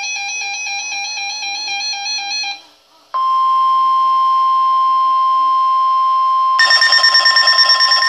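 An electronic tune of quickly alternating pitches for about two and a half seconds, a brief gap, then the NOAA Weather Radio 1050 Hz alert tone, one steady tone. About three and a half seconds into the tone, the weather alert radios it triggers join in with a rapidly pulsing alarm over it.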